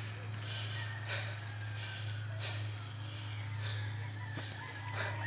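Insects chirping in short, evenly spaced high pulses, about two to three a second, over a steady low hum. A person's heavy breaths come about every second and a half: panting from a climb.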